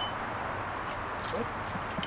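A goshawk's bell jingles faintly once about a second in as the hawk moves on the glove, over a steady background hiss.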